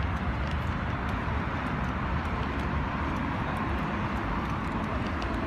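Steady noise of a child's three-wheeled kick scooter's small plastic wheels rolling over coarse asphalt, mixed with a low rumble of wind on the microphone.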